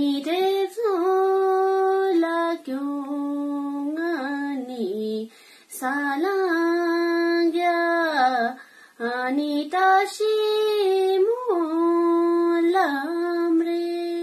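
A young woman singing solo and unaccompanied, holding long notes with wavering turns at the phrase ends and pausing briefly for breath between phrases.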